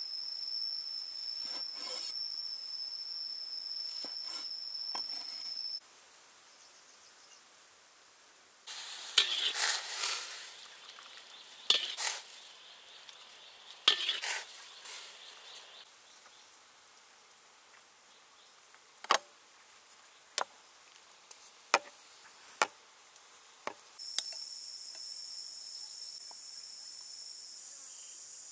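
Food-preparation sounds in a series of short cuts: a steady high insect drone at the start, several short loud bursts of sizzling or stirring in the middle, a handful of sharp utensil clicks, and the high insect drone again near the end.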